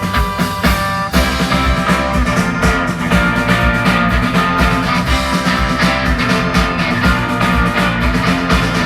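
Live rock band playing an instrumental passage with guitars and drums, the full band coming in harder about a second in.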